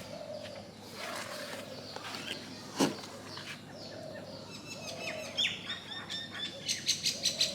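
Birds chirping, with a sharp click about three seconds in and a quick run of rapid chirps near the end.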